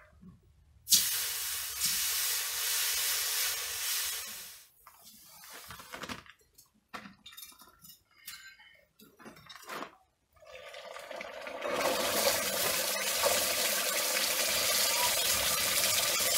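Hot steel axe head quenched in a bucket of water, boiling with a loud hiss. The hiss starts suddenly about a second in and dies down into scattered crackling and bubbling, then builds again into a long steady hiss through the second half.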